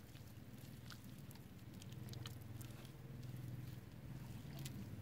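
Faint soft squishes, pats and small clicks of hands pressing and smoothing a ball of wet clay, over a low steady rumble.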